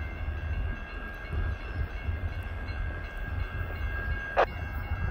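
Distant Norfolk Southern diesel locomotive approaching, heard as a steady low rumble with a faint steady high whine over it. A single short, sharp click comes a little over four seconds in.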